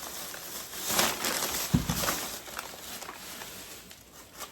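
Grocery bags rustling as items are taken out, with a single knock about two seconds in as something is set down.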